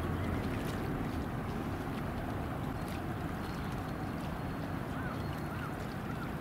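Steady low rumble of outdoor wind buffeting the microphone, with a few faint high chirps about five seconds in.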